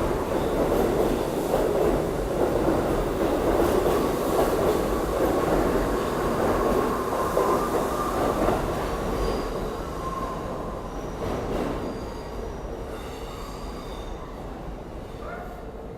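New York City subway train running through the station: a loud rumble of wheels on rail with a steady squeal, fading away over the last few seconds as the train moves off.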